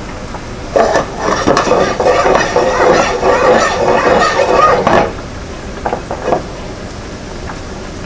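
A metal pan of simmering cream sauce being shaken and slid on the stovetop, scraping and rattling for about four seconds, then two short knocks.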